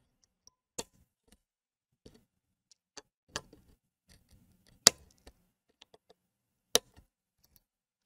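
Side cutters snipping excess component leads off a circuit board: about five sharp snips a second or two apart, the loudest about halfway through, with fainter small ticks of wire and tool between.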